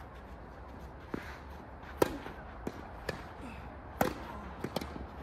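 Tennis rally: a string of sharp tennis-ball hits and bounces, the two loudest racket strikes about two seconds apart, with lighter knocks between and a quick pair near the end.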